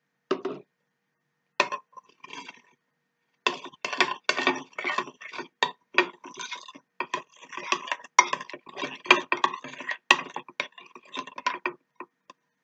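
Metal spoon stirring glue and borax activator in a glass bowl, clinking and scraping rapidly against the glass for about eight seconds. A single dull knock comes just before, near the start.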